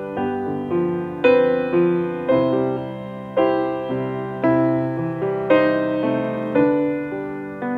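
Slow solo piano music, a chord or note struck about once a second and left to ring out.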